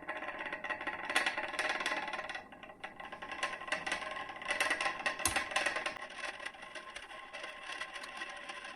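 Magnetic stirrer running with a steady whir, with rattling and clinking from the glass beaker as the PVA and water mixture is stirred; a sharper knock comes about five seconds in.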